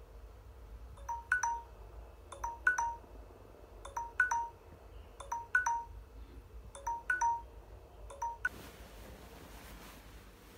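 An electronic chime sounding a short pair of notes six times, about every second and a half, stopping about eight and a half seconds in.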